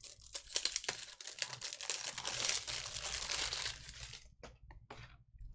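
Plastic trading-card wrapping crinkling and tearing as packaging is opened and handled, a dense crackle for about four seconds, then a few light clicks and taps.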